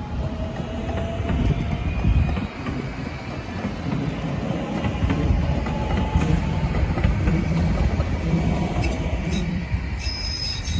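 DART electric light rail train rolling past on the tracks and pulling away: a steady rumble of wheels on the rails, with faint high squealing tones over it.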